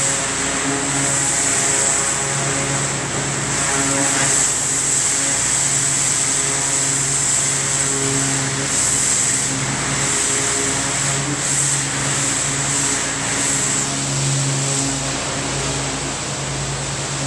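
Pressure washer running: the steady hiss of the water jet from a whirl (rotating) tip spraying concrete, over a constant engine-like drone.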